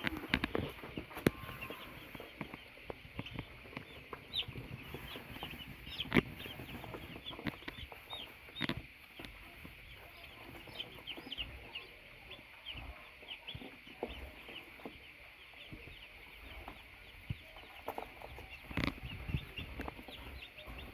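A group of baby chicks peeping, many short high chirps overlapping continuously, with a few sharp knocks at intervals.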